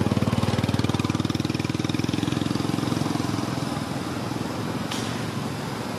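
A small engine running with a rapid, even pulse, loudest for the first few seconds and then easing off. A single sharp click about five seconds in.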